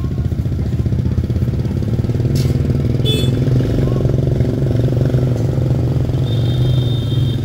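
Motorbike engine idling steadily, a constant low pulsing hum. A plastic bag crinkles about two and a half seconds in, and a short high tone sounds near the end.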